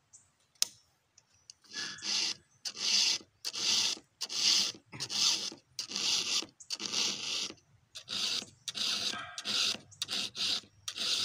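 Round file stroked by hand across the cutter teeth of a chainsaw chain: about a dozen even file strokes, starting about two seconds in and coming a little faster near the end.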